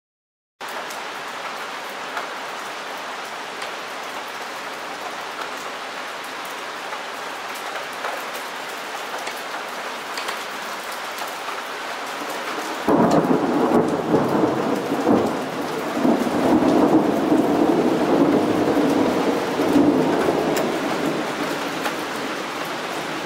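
Steady rain hiss, then about halfway through a loud thunderclap breaks suddenly and rolls on as rumbling thunder for several seconds before easing off.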